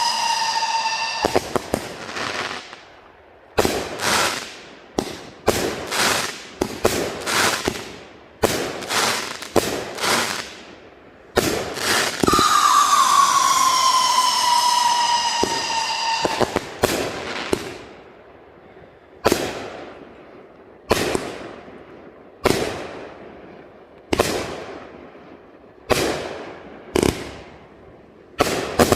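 Black Scorpion "Captain Marvel" 25-shot firework cake firing: a string of sharp shots, each bursting and fading off, often about a second and a half apart. A howling whistle falls in pitch at the start and again for a few seconds in the middle.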